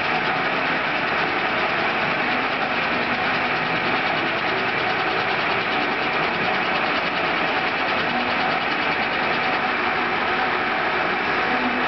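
Victor 16x40 geared-head engine lathe running with its spindle and chuck turning: a steady mechanical whir of the headstock gear train that holds even throughout.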